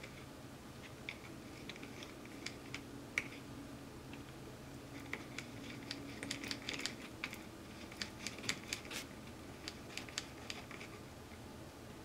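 Scattered small clicks and taps of gloved fingers handling the plastic parts of a car's turn signal switch while working grease into its contacts. The clicks come irregularly and bunch up a little past the middle.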